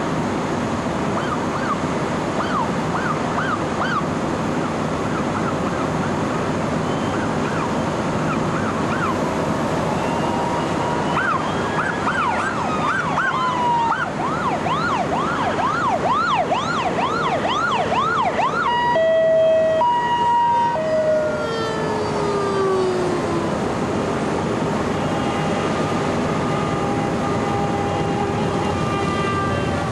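Emergency-vehicle sirens in a passing convoy, heard over a steady rumble of motorcycles and traffic. The sirens wail in slow sweeps early on, then yelp in fast rising-and-falling sweeps until about 18 s in. They are followed by a loud horn blast whose pitch drops as it passes, and more horn tones near the end.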